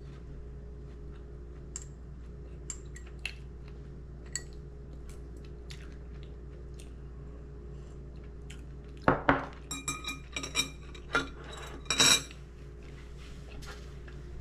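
Scattered light clicks and clinks of hard objects being handled, then a cluster of louder clatter about nine to twelve seconds in, over a steady low hum.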